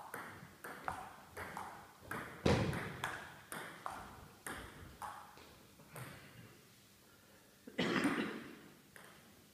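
Table tennis rally: the ball clicking back and forth off the paddles and the table about twice a second for some six seconds, with one heavier hit about two and a half seconds in. After a pause comes a louder, longer burst of noise near the end.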